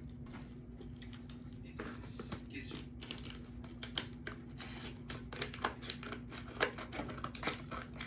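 Stiff plastic clamshell packaging being forced open, giving irregular sharp clicks and cracks, with a brief scraping crinkle about two seconds in.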